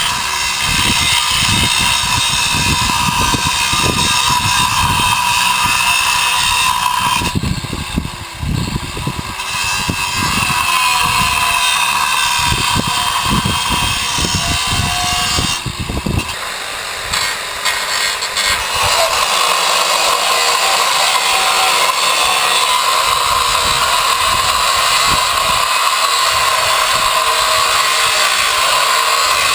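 A power tool cutting through the steel of an old boiler tank, running loudly with a steady whine, easing off briefly twice along the way.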